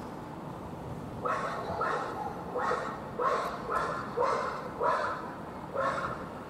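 An animal calling over and over: about nine short, clipped calls, roughly two a second, starting about a second in, over a steady low background hum.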